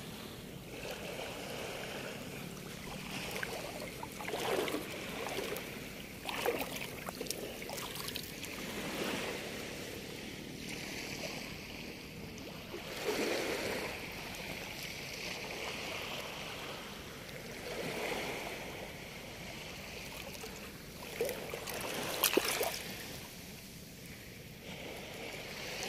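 Small waves lapping and washing in shallow sea water at the shoreline, swelling softly every few seconds, with a sharper splash near the end.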